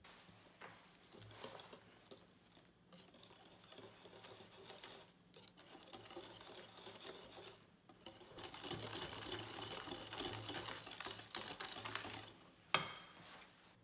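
Wire whisk beating pumpkin loaf batter in a glass bowl while mixing in the spices: a fast, continuous run of wet clicks and taps of the wires against the glass. The whisking grows louder about eight seconds in, and a single sharp knock comes near the end.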